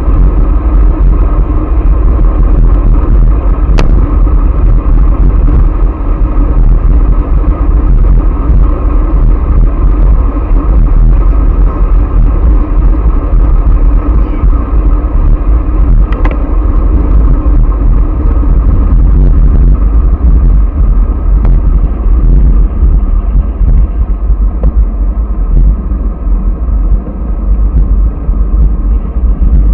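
Wind buffeting the microphone of a bicycle-mounted action camera at speed, a loud steady rumble mixed with tyre and road noise.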